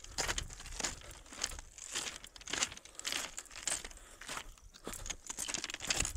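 Footsteps crunching on the loose stone ballast of a railway track, at a steady walking pace of about two steps a second.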